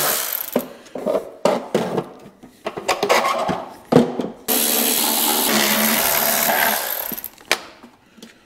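Milwaukee cordless electric ratchet running, backing 5/16 screws out of a sheet-metal heater box. Clicks and knocks of handling come first, then the ratchet runs steadily for close to three seconds past the middle, and a few light clinks follow as the panel comes off.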